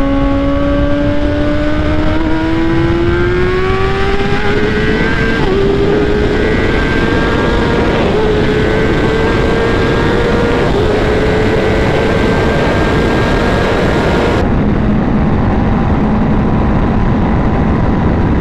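Kawasaki ZX-10R inline-four with an Akrapovič exhaust under hard acceleration: the revs climb, drop back at quick upshifts about 5, 8 and 11 seconds in, and climb again. Heavy wind rush runs under it throughout, and from about two-thirds of the way through the wind rush all but covers the engine at high speed.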